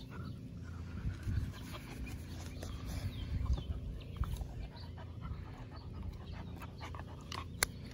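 A worn-out puppy panting after play, with a few sharp clicks near the end.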